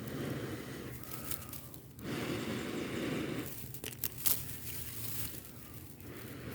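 Someone blowing long, steady breaths onto smouldering dry grass tinder held in the hand, trying to coax it into flame: two long blows, then a few small crackles and rustles of the tinder.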